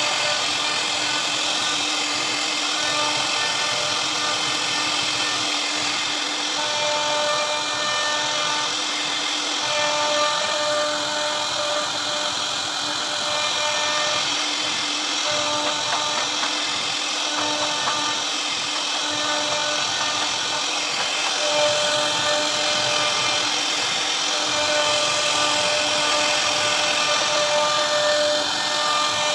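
CNC router spindle running and cutting a carved pattern into a wooden board: a steady hiss with whining tones that come and go as the bit works.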